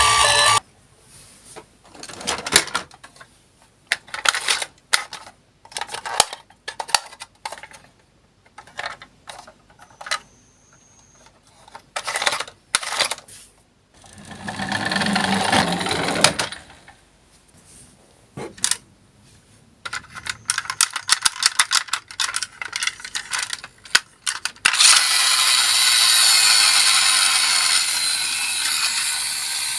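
Toy minicars clicking and clattering on a slope: scattered sharp clicks and knocks, a swell of rolling noise midway, then a steady rolling rattle over the last few seconds.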